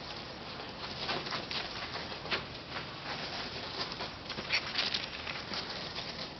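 A Norfolk terrier's paws running through dry fallen leaves and grass, making irregular crackling, rustling steps, with a few sharper crackles.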